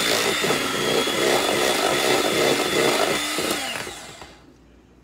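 Electric hand mixer running in a bowl of cake batter with a steady high whine, then switched off about three and a half seconds in, its motor winding down in pitch until it stops.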